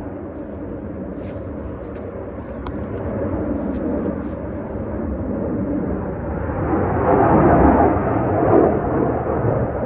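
Aircraft flying over, a steady rushing engine noise that grows louder about seven seconds in.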